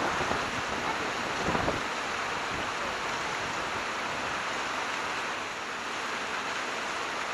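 Steady rushing of water churning out from under a dam, a continuous even noise with no break.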